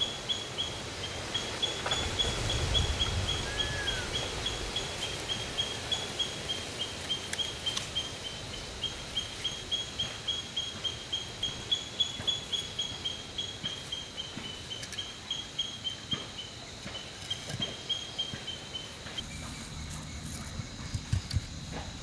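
Outdoor ambience dominated by a chirping animal: short high chirps repeating steadily at about three a second, which stop about three seconds before the end. A single short whistle sounds a few seconds in.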